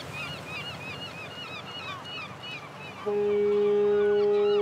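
Birds calling in short, repeated chirps, then about three seconds in a ship's horn starts a long, steady blast that drowns them out.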